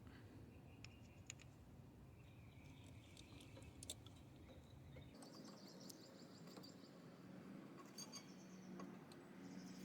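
Near silence: room tone with a few faint clicks and ticks.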